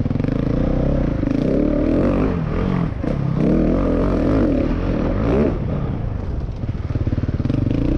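Husqvarna 701 Enduro's single-cylinder four-stroke engine on the throttle over dirt, its pitch rising and falling several times in the middle as the rider opens and closes the throttle, then running steadier near the end.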